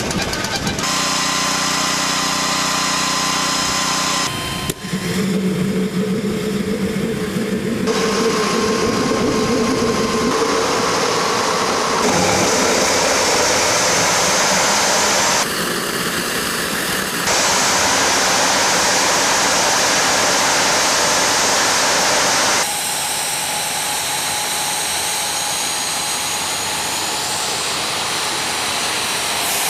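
Homemade gas-turbine jet engine running at full power: a loud, steady rush of noise with faint high whining tones. Its character changes abruptly several times.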